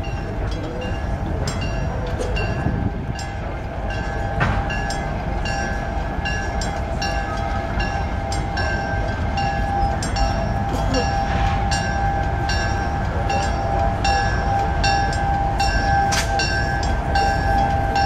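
Passenger train rolling past, with a steady rumble and a steady high whine, while a bell rings in an even rhythm of just under two strokes a second.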